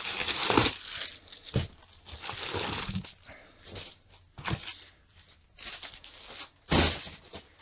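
Plastic poly mailer bag crinkling and rustling as it is pulled back from books packed in a cardboard box, with a few sharp knocks of handling, the loudest near the end.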